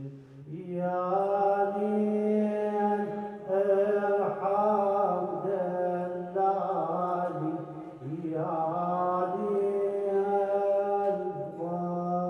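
A man chanting an Arabic Shia mourning elegy (a Husayni lament) solo and unaccompanied into a microphone, in long drawn-out phrases, each held two to three seconds with brief breaks between them.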